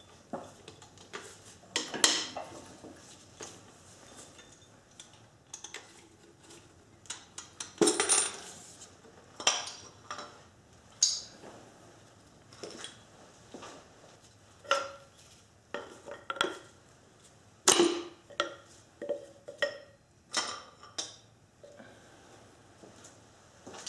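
Irregular metal clinks and clanks of wrenches, connecting-rod caps and pistons being worked loose, lifted out and set down on a Datsun L24 inline-six engine block, with a few sharper, louder knocks among them.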